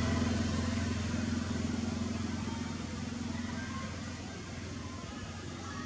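A motor vehicle's engine running steadily, fading as it moves away.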